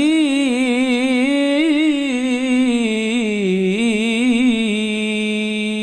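Solo male voice singing sholawat unaccompanied into a microphone: one long melismatic phrase held on a single vowel, the pitch wavering through ornaments and dipping before it steadies, with no drumming under it.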